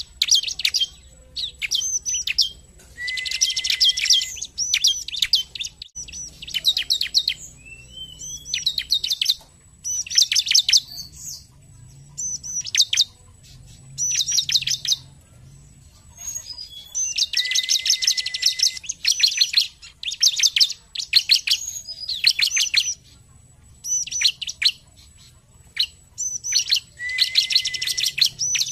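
Bar-winged prinia (ciblek) singing: repeated bursts of rapid, sharp high chirps with short pauses between them. Three longer, busier phrases each carry a brief lower steady note.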